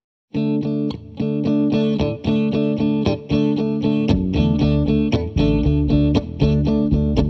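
Guitar music starts after a moment of silence: a steady pattern of picked notes, joined by bass about four seconds in.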